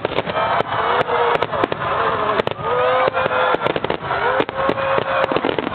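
Fireworks display: rapid, overlapping bangs and crackling from many shells bursting in quick succession.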